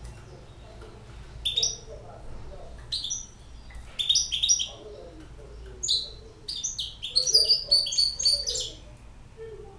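Six-month-old goldfinch hybrid singing: separate bursts of sharp, high twittering notes, then a longer, faster run of them near the end.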